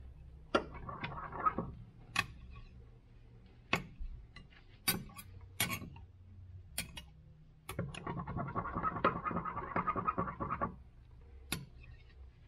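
A stir tool scraping around a cup of warmed, black-tinted liquid plastisol. It scrapes for about a second near the start and again for a couple of seconds past the middle, with scattered sharp taps and clicks against the cup in between.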